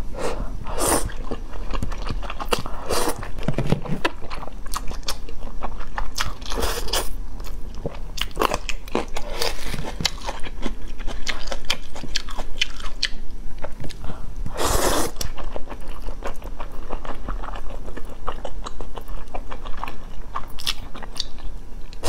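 Person slurping and chewing glass noodles stewed with pork ribs: wet mouth clicks and smacking throughout, broken by several louder slurps, the loudest about 15 seconds in.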